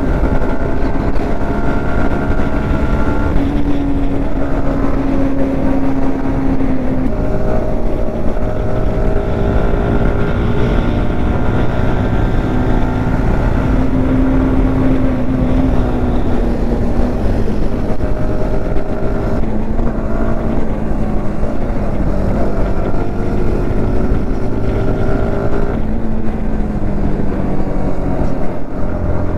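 Motorcycle engine running under way, its pitch shifting up and down several times as the bike changes speed and gear, over steady rushing wind noise on the microphone.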